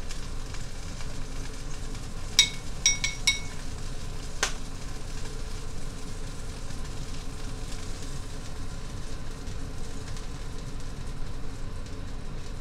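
Bacon grease left in a cast-iron skillet sizzling steadily after the collard greens have been fried in it. About two and a half seconds in, four quick ringing clinks of a metal fork against a ceramic bowl, then one more sharp tap a second later.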